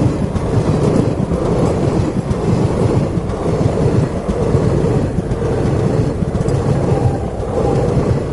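Indian Railways ICF passenger coaches rolling past close by: a loud, steady rumble of steel wheels on the rails with a rapid rattle.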